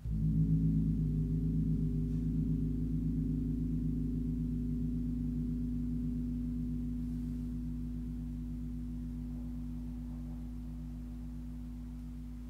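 Large gong tuned to G#1 (51.91 Hz), struck once gently, then ringing on in a deep hum with several overtones that slowly fades.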